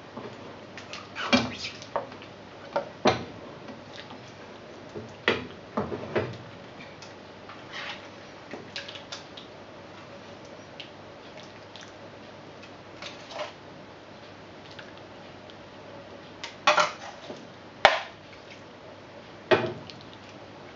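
Metal ladle clinking and scraping against a wok and a plate as curry is spooned out over rice, in scattered sharp knocks with quiet gaps between.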